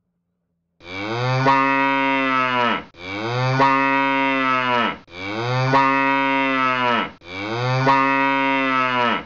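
A cow mooing four times in a row, the same recorded moo repeated back to back, each call about two seconds long and dropping in pitch at its end.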